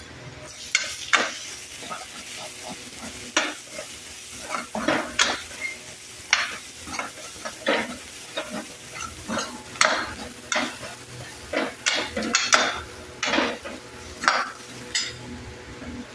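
Steel ladle stirring and scraping onions and ground spices around a metal kadai in irregular strokes, about one or two a second, while the tadka sizzles in the oil.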